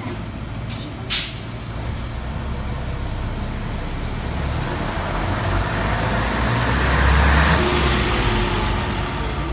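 City bus pulling away: a short, sharp hiss of air from the brakes about a second in, then its diesel engine runs up and grows louder as the bus drives past, loudest near the end.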